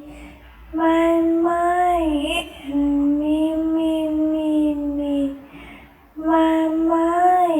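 A high voice singing long held "meee" notes: three drawn-out phrases with short breaks between them, the pitch sagging and rising a little within each. A faint, evenly repeating ticking backing runs underneath.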